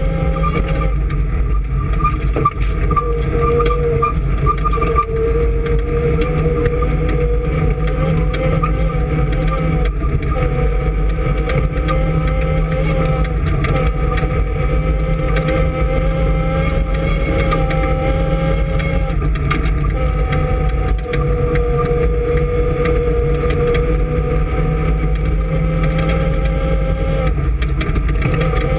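A vehicle engine running steadily at speed, its pitch holding with a few brief dips and small shifts.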